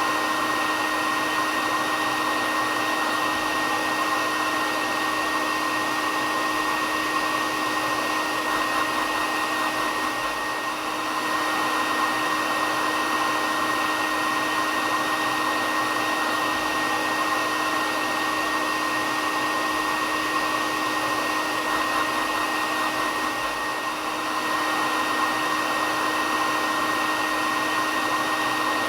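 Hair dryer running steadily: an even rush of blown air with a steady motor whine on top, dipping slightly twice.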